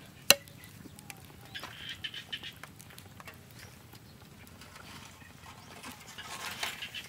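Animal calls in the background, coming in short scattered bouts, with one sharp click about a third of a second in.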